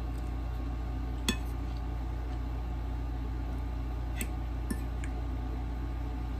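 A metal fork clinking against a plate a few times as noodles are scooped up, the sharpest clink about a second in. A steady low hum runs underneath.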